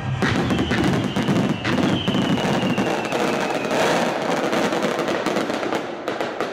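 Fireworks display: many aerial shells bursting in quick succession with dense crackling, and a faint falling whistle over the first few seconds.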